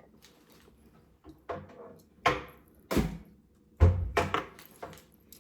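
A can of cream corn being knocked against the rim of a small cooking pot to empty it, giving about five separate knocks, the heaviest dull thunks a little past the middle.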